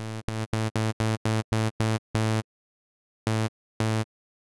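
Zebra2 software synthesizer's initialized patch playing a repeated eighth-note A2 through its built-in compressor: a quick run of short, even notes, with the first one held down quieter by gain reduction. The notes break off about halfway, and two more come near the end.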